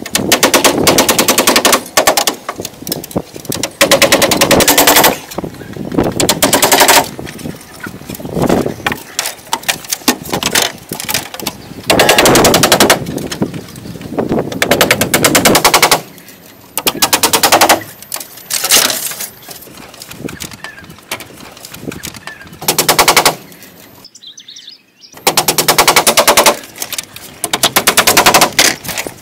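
Repeated loud bursts of fast rattling clatter, each about a second long, from dry bamboo slats and poles knocking together as they are worked into a tree-house wall.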